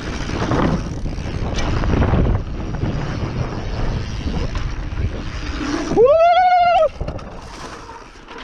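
Mountain bike rolling fast over a bumpy forest trail: tyre and frame rattle with wind buffeting the microphone. About six seconds in, a single pitched squeal rises, holds for just under a second and breaks off.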